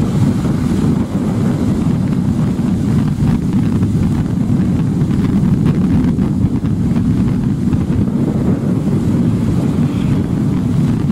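Steady jet engine noise from an F-15 Eagle fighter's twin turbofans on landing approach, mixed with wind noise on the microphone.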